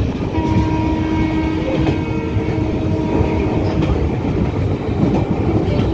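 Passenger train running, heard from aboard: a steady, loud rumble of wheels on the track. A held tone sounds over it from just after the start until almost four seconds in.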